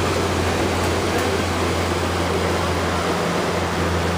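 Boat outboard motor running steadily under way, a constant low drone over the rush of water and air. A second, higher hum joins about halfway through.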